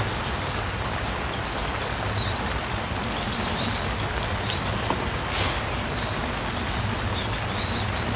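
Steady rain falling on the pond's water surface: an even hiss with scattered sharp drop ticks.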